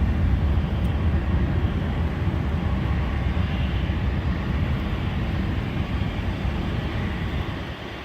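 A jet aircraft passing, a deep rumble that slowly fades away.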